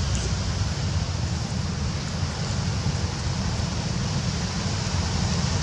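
Wind blowing across the camera microphone: a steady, uneven low rumble under an even hiss, with no distinct events.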